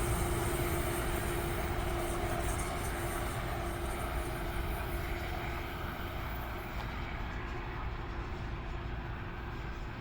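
NJ Transit passenger train moving away, its rumble and rail noise slowly fading. A steady tone dies out in the first couple of seconds.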